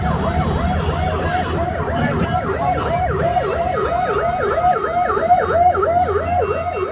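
Sirens on parade motorcycles sounding a fast rising-and-falling yelp, about three cycles a second, with a second, higher-pitched siren overlapping, over the low rumble of motorcycle engines.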